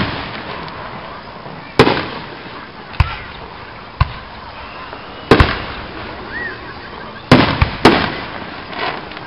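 Aerial firework shells bursting overhead: about seven sharp bangs at irregular intervals, each dying away in an echo.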